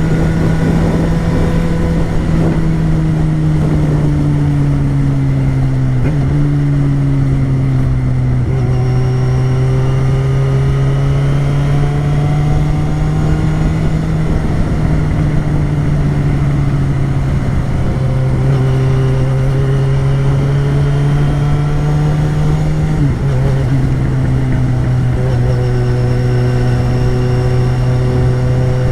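Yamaha XJ6's 600cc inline-four engine running under way at steady, moderate revs, its pitch rising gently and then dropping sharply three times, as at gear changes.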